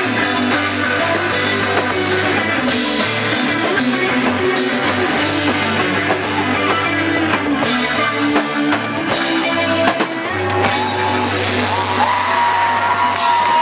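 Live rock band playing: drum kit, electric guitars and bass. In the last few seconds a long high note is held and bent up and down over the band.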